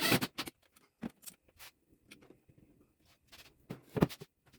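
Sharp knocks and clicks from a cinder block being handled and hung on screws. The loudest knocks come right at the start and again about four seconds in, with a few softer taps between.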